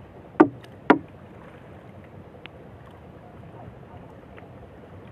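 Steady wind and sea hiss around a small fishing boat on open water, with two sharp knocks about half a second apart near the start.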